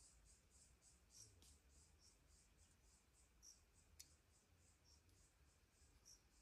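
Faint forest ambience: an insect chirping high and steady at about four pulses a second, with a few short higher notes scattered through and one sharp click about four seconds in.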